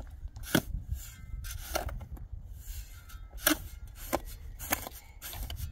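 Shovel blade scraping and striking gravelly soil on rock as earth is dug and heaped. There are about six sharp scrapes, roughly a second apart, over a steady low rumble.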